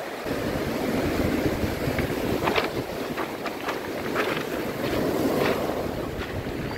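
Surf breaking and washing over a pebble beach, with wind buffeting the microphone in a heavy rumble. Several short clatters stand out from the wash.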